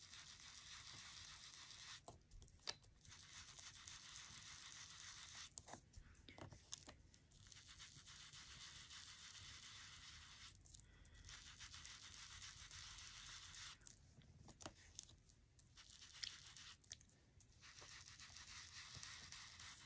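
Foam ink-blending dauber rubbed and dabbed over cardstock, laying on ink: a faint, scratchy scrubbing that comes in stretches of a few seconds with short pauses between.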